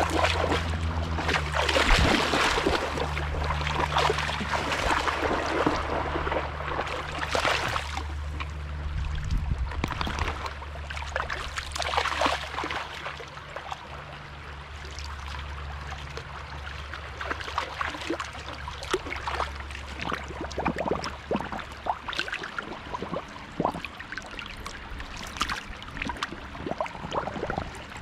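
Shallow stream water trickling and splashing as dogs wade through it, with irregular louder splashes. A low steady hum runs underneath and stops about 22 seconds in.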